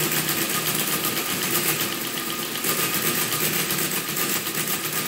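Friden ACG electromechanical calculator running under its motor, its gears, carriage and register mechanism chattering rapidly and evenly, with a faint steady whine under the clatter.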